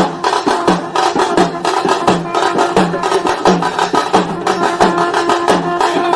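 Intro music driven by fast, busy drumming, with a short pitched figure repeating under the beat.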